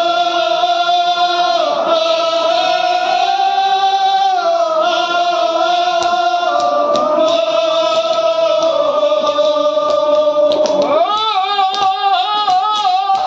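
Men's voices chanting a Kashmiri marsiya, a Shia mourning elegy, in long drawn-out held notes. About eleven seconds in, rhythmic hand strikes join the chant.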